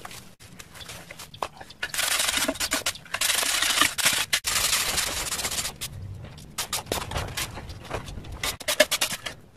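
Wire brush scraping over the surface of a hardened cement flower pot. Two longer, louder strokes come about two and three seconds in, followed later by a run of quicker, lighter strokes.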